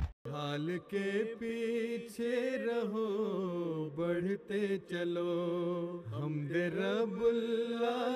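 A solo voice singing an Urdu devotional poem (nazm) unaccompanied, in slow, drawn-out notes with wavering ornaments. It starts just after a brief silence.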